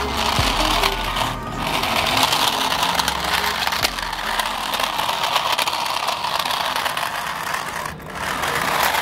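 Toy RC car's small electric drive motor and gearbox buzzing steadily as it drives, dipping briefly twice.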